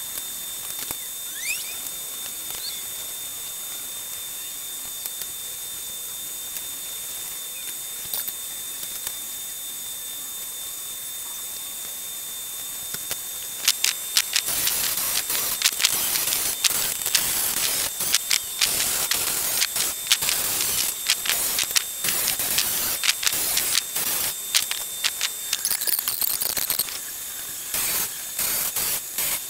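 Handheld power tool grinding away rebond seat foam in short, irregular bursts, starting about halfway through. Before that there is only a steady faint hiss.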